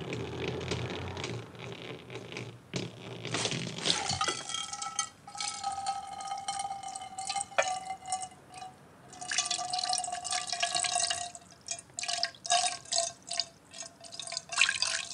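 Cooking oil poured from a bottle held high into a copper saucepan: a noisy splashing at first, then from about four seconds in a steady ringing tone from the thin stream hitting the pan, which breaks up into short spurts near the end.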